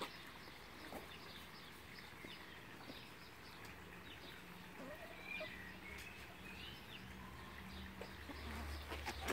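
Faint scattered clucks and chirps from chickens, over a low steady hum.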